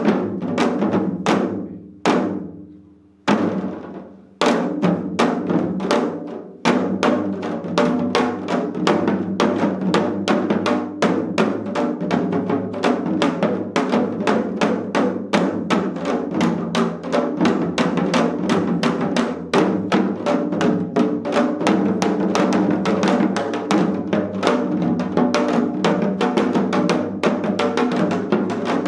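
Ensemble of janggu, Korean hourglass drums, played by seated drummers in a seoljanggu piece. A few widely spaced strokes ring out and die away in the first seconds, then a fast, dense rhythm of drum strokes runs on from about four seconds in.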